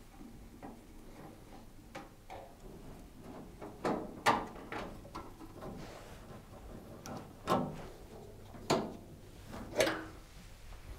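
Screwdriver work on a Gorenje integrated dishwasher's sheet-metal side panel: small scattered clicks as the screws are turned out, then several louder knocks and clatters, the last ones as the side panel is lifted off.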